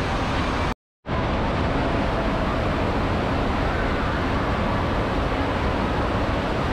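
Steady rush of pumped water sheeting up the slope of a FlowRider surf simulator, heard as a loud, even roar of water. The sound cuts out completely for a moment about a second in, then resumes unchanged.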